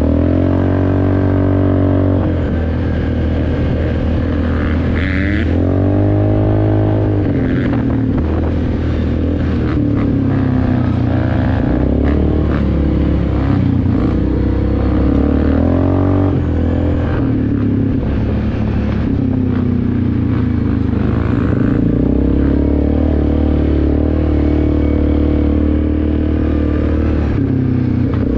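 Yamaha Grizzly 400 ATV engine running under way, its revs rising and falling again and again as the throttle is worked along a dirt trail.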